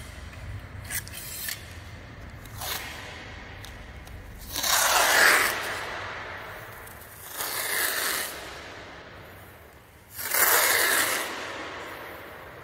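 Masking tape being pulled off the roll in three long pulls of about a second each, a ripping, scraping noise, with a few small clicks and rubs between.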